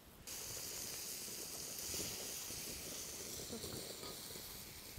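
Semolina-battered fish pieces sizzling in hot oil on a flat iron pan: a steady hiss with small crackles. It starts abruptly just after the beginning.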